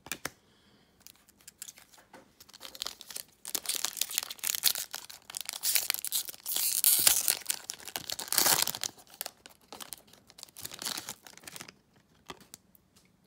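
A 2021 Donruss Football retail card pack's wrapper being torn open and crinkled. The tearing and rustling starts about three seconds in, is loudest in the middle, and dies away near the end.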